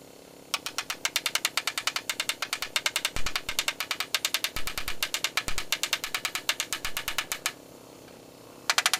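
A rapid run of sharp clicks, about ten a second, lasting about seven seconds; a few dull knocks from a hammer on the wooden bed frame fall in the middle of it. Near the end the clicking starts again.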